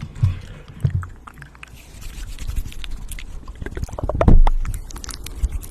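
Close-miked ASMR mouth sounds: wet clicks and smacks, with soft low thumps early on and a louder low thump about four seconds in.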